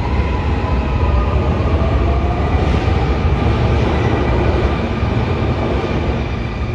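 Subway train running: a steady low rumble with faint steady motor tones and a slowly gliding whine above it, easing off slightly near the end.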